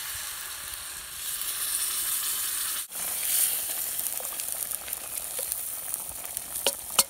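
Liquid sizzling and steaming as it is poured into a hot cast iron Dutch oven, then a wooden spoon stirring the hissing chili, with a couple of sharp clicks near the end.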